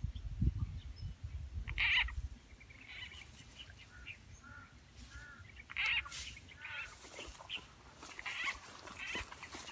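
Frog calls: short croaking calls repeating at irregular intervals, some strong and some fainter. A low rumble runs through the first couple of seconds.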